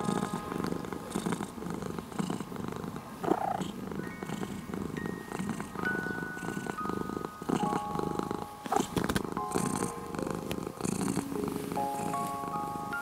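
A ginger-and-white cat purring at full strength, a steady, close, low rumble that runs without a break, as it does on waking.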